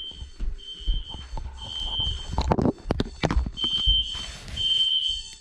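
System Sensor SpectrAlert Classic fire alarm horn sounding the temporal-three evacuation pattern: three half-second high tones about a second apart, a pause, then three more. A few loud knocks and rattles come in the middle.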